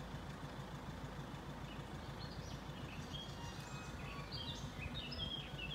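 Small birds chirping in short, high, repeated notes from about two seconds in, over a steady low background rumble.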